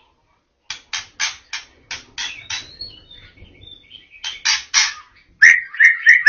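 White-rumped shama (murai batu) singing. It starts with a run of short, harsh notes at about three a second, then softer notes, three more harsh notes, and a fast warbling phrase near the end.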